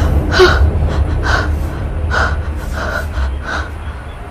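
A person breathing hard in quick gasps: about five sharp breaths a little under a second apart, growing weaker, over a low rumble that fades away.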